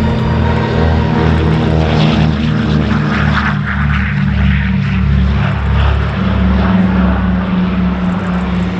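Douglas C-47A Skytrain's two Pratt & Whitney R-1830 radial engines at full power for takeoff as the aircraft rolls past and lifts off: a loud, pulsing propeller drone whose pitch drops as it goes by in the first few seconds.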